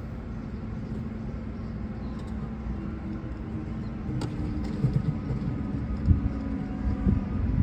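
V/Line N class diesel-electric locomotive arriving: a steady low engine rumble and hum that grows louder in the second half, with a few low thumps.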